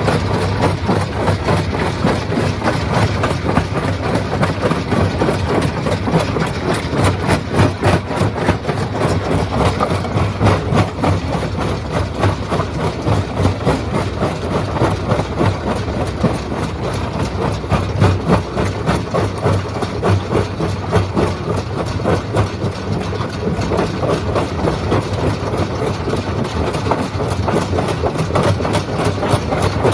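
Stone crushing machine running: a steady low mechanical hum under a continuous, dense clatter of rock being broken.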